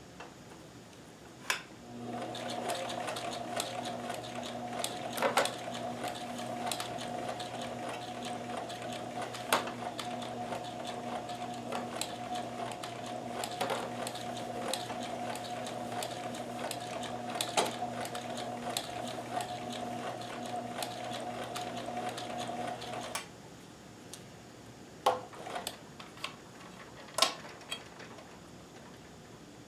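Kenmore 158.1914 sewing machine fitted with a super high shank walking foot, sewing at a slow speed setting: a steady mechanical hum with light clicks and clatter. It starts about two seconds in and stops suddenly near the end, leaving a few isolated clicks.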